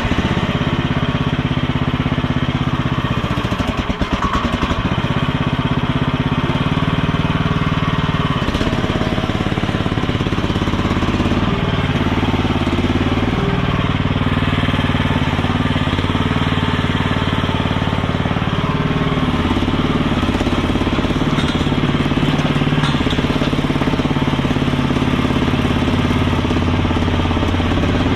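Chinese mini skid steer's engine running steadily, its pitch dipping briefly about four seconds in and a few more times between eight and twelve seconds.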